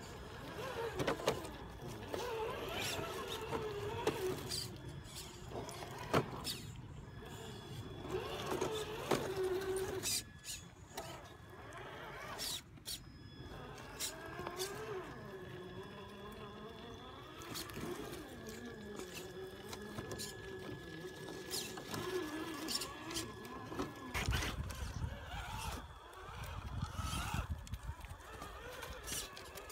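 Electric drive motors and gearboxes of Traxxas TRX-4 RC rock crawlers whining, the pitch rising and falling with the throttle, with scattered knocks as the tyres and chassis bump over rocks.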